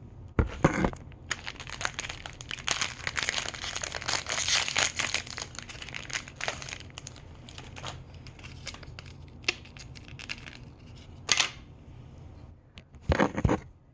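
Small toy packaging being opened by hand: plastic wrapping crinkling and tearing in a dense crackly run that is loudest a few seconds in. It thins to scattered clicks and taps, with a few sharper snaps near the end.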